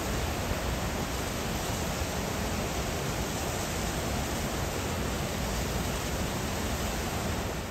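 Steady, even rushing noise with no distinct events, strongest in the low end.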